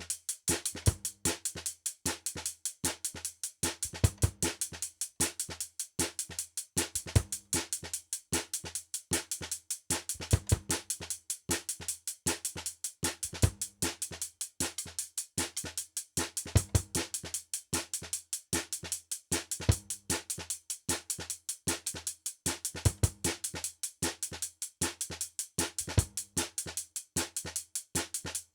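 Background music with a steady electronic drum beat and bass.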